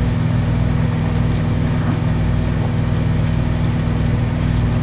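Microwave oven running: a steady, even electrical hum with a low buzz.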